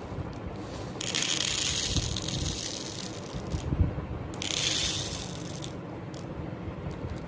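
Small beads rattling and clattering in their packaging, in two spells: a longer one about a second in and a shorter one just after the middle, with a knock between them.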